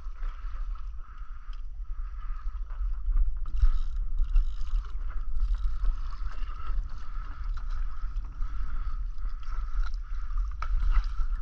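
Water lapping and splashing against a fishing kayak's hull, with wind buffeting the microphone and a steady high hum throughout.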